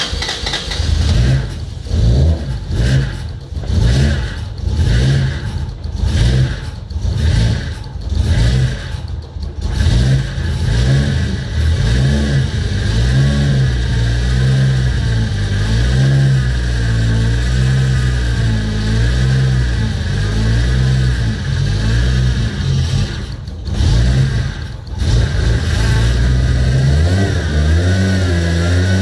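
Toyota 2JZ-GTE turbocharged straight-six running on its first start after being swapped into the car. For about the first ten seconds it surges up and down roughly once a second, then settles into steadier running, with a couple of brief dips in the engine note later on.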